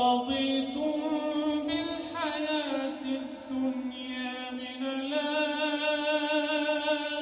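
A man reciting the Quran in the melodic chanted tajweed style, amplified through a microphone, drawing out long held notes with ornamented turns in pitch.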